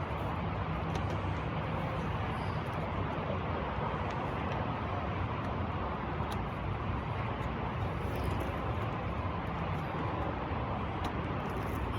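Steady vehicle noise with a low hum and a few faint clicks.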